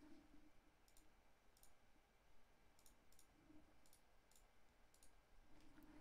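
Near silence with several faint computer mouse clicks scattered through, some in quick pairs.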